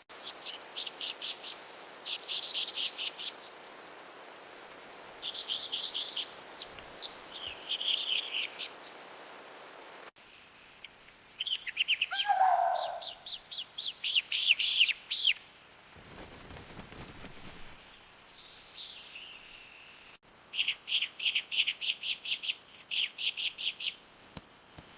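Small birds calling in quick chattering series of high chirps, with short pauses between bouts. A steady high-pitched whine runs beneath the calls from about ten seconds in.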